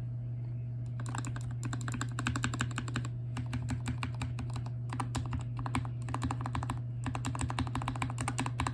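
Modded GK61 60% mechanical keyboard being typed on quickly, rapid keystroke clicks in bursts with short pauses, starting about a second in. A steady low hum runs underneath.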